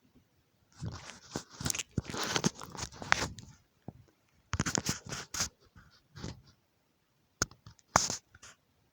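Small hand tools scraping, crackling and clicking against a phone screen's connections during soldering work, in irregular spells with short pauses between them.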